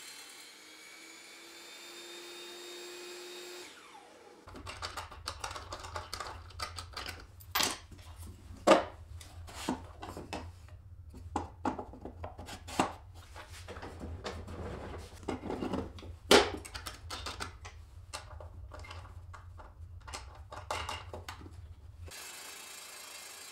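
MDF jig parts being handled and fitted together on a table-saw top: a long run of sharp wooden knocks and clatters, two of them much louder than the rest. It opens with a motor running with a slowly rising pitch that stops about four seconds in.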